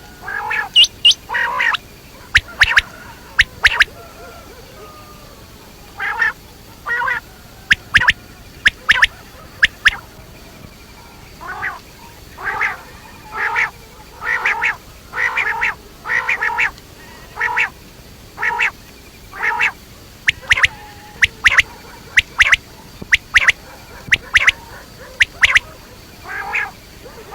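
Quail calling over and over: short, sharp calls in quick series, repeated roughly once a second, with a brief pause about four seconds in.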